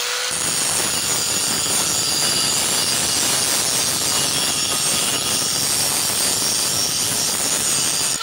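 Electric angle grinder grinding the braking face of a cast-iron brake rotor by hand: its whine gives way to a steady, loud grinding rasp just after the start, lasting until the disc lifts off at the very end.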